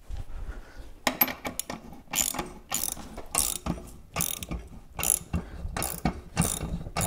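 Hand ratchet wrench tightening an ATV axle nut, its pawl clicking in short bursts on each back-and-forth stroke, about two strokes a second, starting about a second in. Each turn draws the wheel hub further back onto the splined axle.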